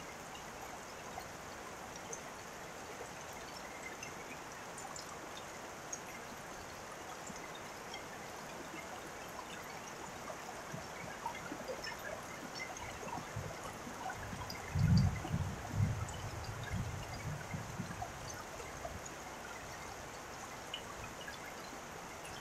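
Steady rain with scattered drips and trickling water. About two-thirds of the way through, a few seconds of low rumbling thumps rise over it; they are the loudest part.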